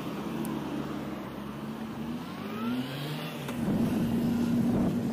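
Road traffic heard from a moving bicycle: a motor vehicle accelerates with a rising engine note about two to three seconds in. Near the end, louder wind rumble on the microphone comes in.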